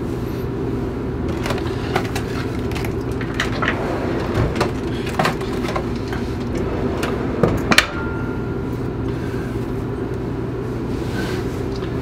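Contoure convection microwave running on its popcorn program, a steady hum. Scattered clicks and knocks of things being handled on a pantry shelf sound over it, the loudest about eight seconds in.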